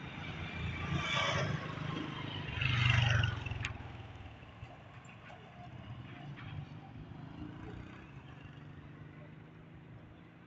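Motor vehicles passing on a street: two engine-and-tyre surges with a low hum about one and three seconds in, the second the loudest, then a quieter street background. A single sharp click just after the louder surge.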